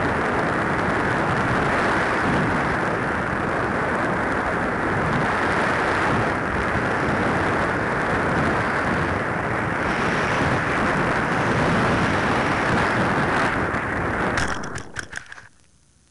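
Steady rush of airflow over a Parkzone Radian glider gliding with its motor off. It ends in a few sharp knocks and scrapes as the glider touches down in grass and stops, leaving only a faint hiss.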